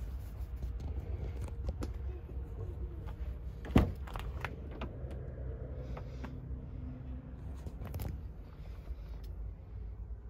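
Subaru Forester front door being opened: a sharp latch click about four seconds in, among lighter clicks and handling noises over a low rumble.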